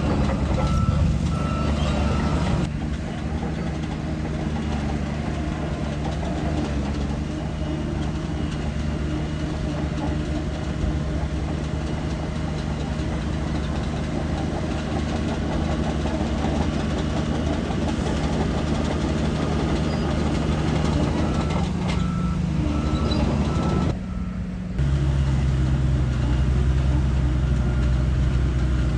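Shantui DH17 bulldozer's diesel engine running steadily, with its reversing alarm beeping in a short run near the start and again about twenty seconds later as it backs up.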